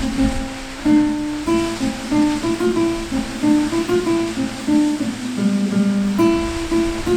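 Acoustic guitar music, single notes picked one after another in a slow melody, over a faint steady rush of water.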